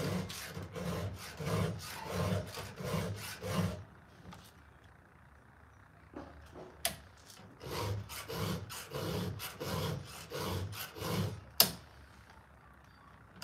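Hand file rasping across the teeth of a Stihl chainsaw chain as it is sharpened, in even strokes about two a second. There are two runs of strokes with a pause of a few seconds between them, and a single sharp knock near the end.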